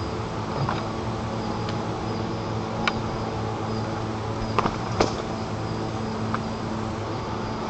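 A handful of short, sharp knocks and taps from white-tailed eagle chicks knocking at each other on the sticks of the nest. The two loudest come close together about five seconds in. Under them runs a steady hum and hiss from the nest camera's microphone.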